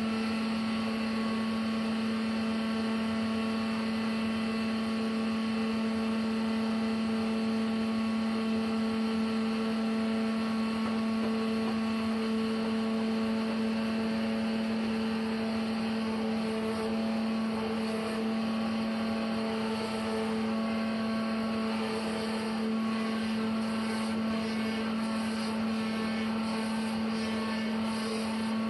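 Sawmill machinery running steadily under power, a constant mechanical hum with one strong unchanging pitch and no break.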